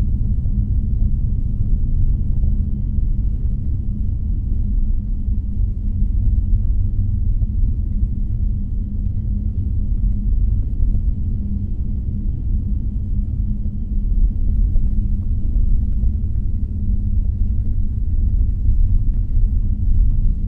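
Car cabin noise while driving: a steady low rumble of road and engine noise heard from inside the car, with a faint steady hum.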